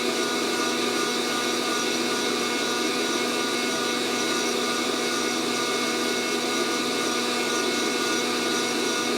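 Fresh Roast SR 800 hot-air coffee roaster's fan running at a steady whir, with several steady tones in it, as it blows hot air through the beans mid-roast. No first-crack pops are heard yet.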